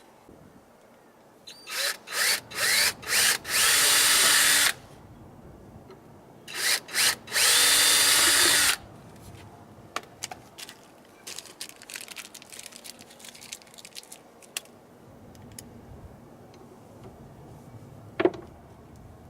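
Power drill run in a few short trigger pulses and then held for about a second, twice, as when driving screws during assembly. Light clicking and rattling of parts being handled follows, with one sharp knock near the end.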